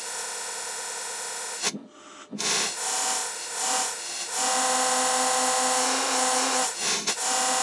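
Extremely slowed, time-stretched soundtrack of a children's TV episode: a dense, buzzing drone of held, smeared tones. It breaks off briefly about two seconds in, then returns louder with a steady pitched tone on top.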